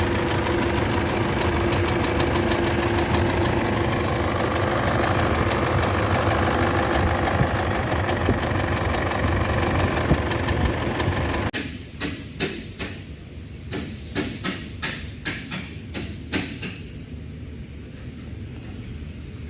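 Isuzu 4JJ1 four-cylinder turbo-diesel idling with a knock from the bottom end, caused by a broken crankshaft main bearing cap. The engine sound stops abruptly about halfway through. It is followed by a string of about ten sharp clicks over several seconds.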